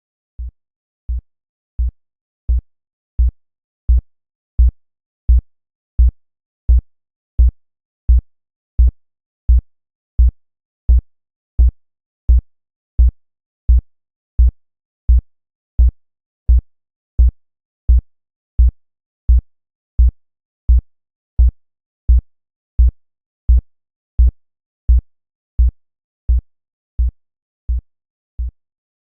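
Synthesized heartbeat: a steady, even series of low, dull thumps, about three every two seconds, each dying away quickly.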